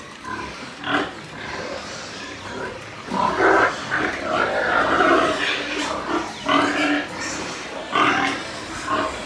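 Pigs in pens calling, a long run of calls from about three seconds in and several shorter calls near the end.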